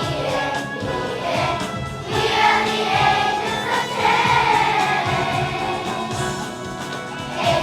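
A choir singing a song, with musical accompaniment.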